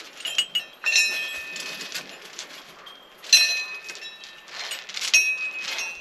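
Hanging brass shrine bells rung by hand: three main clangs, about a second in, halfway through and about five seconds in, each ringing on in several clear tones. Lighter clinks come just before the first clang.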